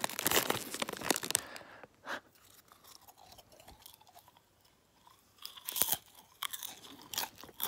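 Crunching and chewing of sea-salt popcorn close to the microphone. There is a dense crackly spell in the first second and a half, a lull, then a few sharp crunches near the end.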